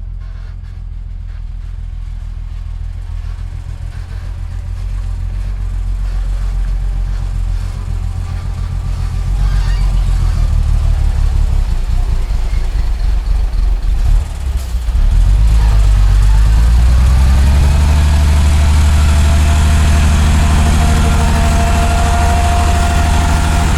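Heavy machine's diesel engine running, getting gradually louder, then briefly dropping before picking up speed and running louder and steadier through the second half.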